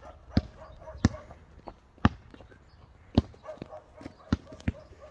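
A basketball being bounced on hard ground, one sharp bounce about every second, with two bounces close together near the end.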